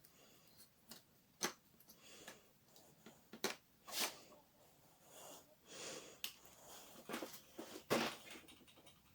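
Laptop teardown handling noises: several sharp clicks and taps with short scraping rubs in between, as tools and small metal and plastic parts are worked and set down.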